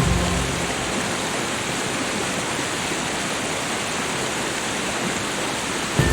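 Steady hiss of falling water. Low background music tones fade out just after the start.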